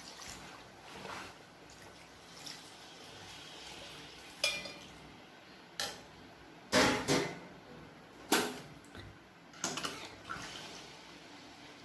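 Water being poured into a pot of browned mutton curry, then a handful of sharp clanks of utensils and cookware knocking against the pot, the loudest in the middle.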